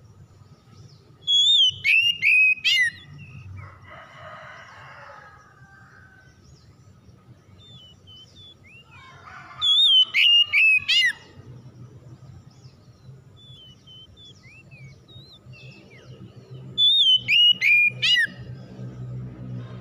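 Oriental magpie-robin singing: three loud phrases, each a rapid run of four or five clear whistled notes lasting about a second and a half, roughly seven seconds apart, with soft scattered chirps in between.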